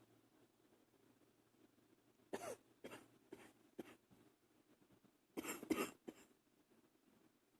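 A person's held-back coughs, kept quiet. A few short coughs come about two seconds in, then a louder burst of two or three coughs in quick succession near the six-second mark.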